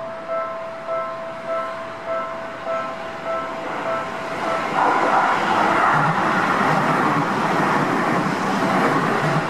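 Railway level-crossing warning bell ringing in quick even pulses, a little under two a second, until a Seibu Ikebukuro Line train running past close by drowns it out about five seconds in with a steady rushing rumble of wheels on rail.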